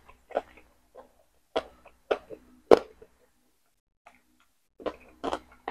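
Close-up chewing of boiled chicken: irregular sharp mouth clicks and small crunches, with a quiet pause a little past halfway.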